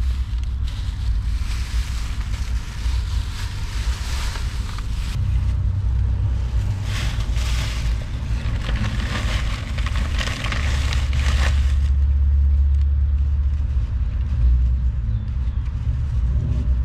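Thin plastic grocery bags crinkling and rustling as they are handled and set down on a seat, stopping abruptly after about eleven seconds. A steady low rumble runs underneath.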